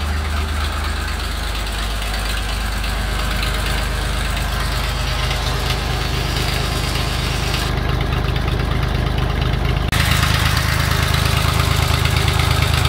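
1977 Fiat 480 tractor's three-cylinder diesel engine idling steadily, still cold just after starting from two years of standing. About ten seconds in the sound turns abruptly louder and brighter.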